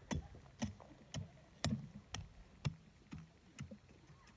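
Short-handled hand hoe chopping into grassy garden soil while weeding, a steady run of dull knocks about two a second that grow fainter near the end.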